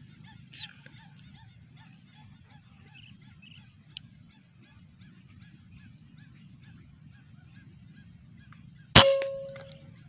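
A single sharp crack of a PCP air rifle (a Jawara Mauser) firing about nine seconds in, followed by a short ringing tone. Before the shot, a steady background of many small chirping bird calls.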